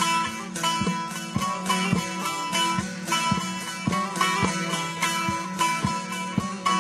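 Instrumental folk music on a plucked string instrument, with clear plucked notes at a steady pace of about two a second.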